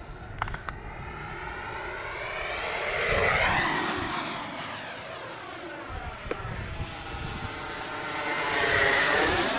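Whine of an E-flite Havoc Xe 80 mm electric ducted-fan RC jet flying past twice. Each pass rises in loudness, and the high whine drops in pitch as the jet goes by.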